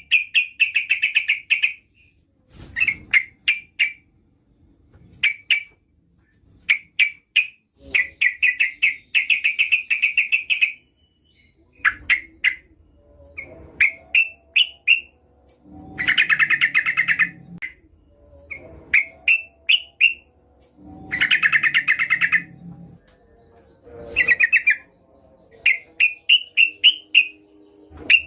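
Female yellow-vented bulbul (trucukan) calling, as used to lure a male: repeated bursts of quick chattering notes alternating with short runs of separate rising notes, with brief pauses between bursts.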